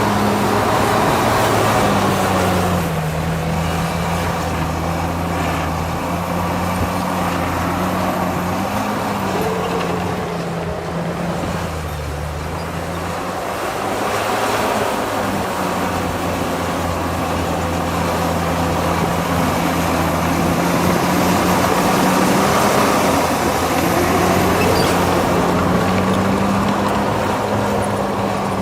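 Heavy diesel engine of construction machinery running steadily under load, its pitch sagging and recovering a few times.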